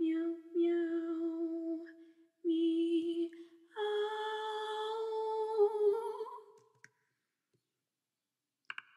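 A voice singing "miau" on long held notes, four in a row, the last one higher and held about three seconds before it stops. A short faint sound comes just before the end.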